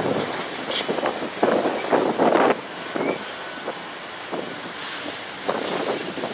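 Freight train of autorack cars rolling past close by: steel wheels on the rails making a steady rumble broken by irregular clanks, louder for the first two and a half seconds, then easing off.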